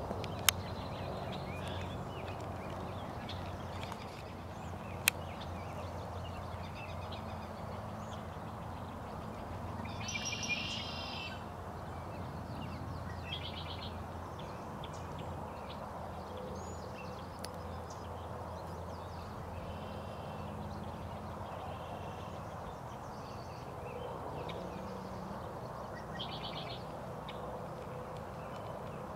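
Birds calling now and then in short chirpy phrases over a steady low outdoor rush. Two sharp clicks stand out, about half a second in and about five seconds in.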